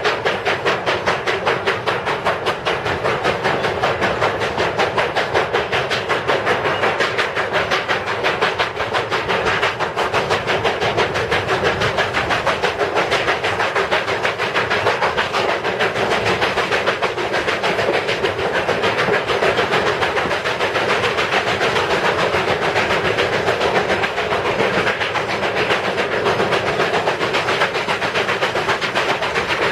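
Steam locomotive 4960, a 2-8-2 Mikado, chuffing steadily at speed in a fast, even rhythm, with the cars' wheels clattering on the rails, heard from just behind the tender.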